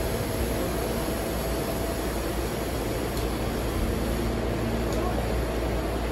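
Steady running noise inside a Seibu 101-series commuter train car in motion: a low rumble from wheels on rails with a faint steady hum underneath.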